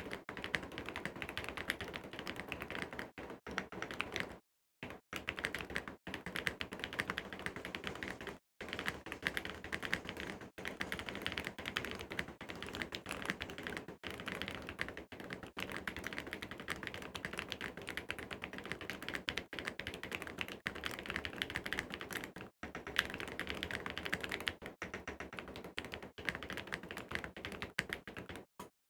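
Mechanical keyboard being typed on fast and steadily, a dense run of key clicks and key bottom-outs, broken by a few short silent gaps.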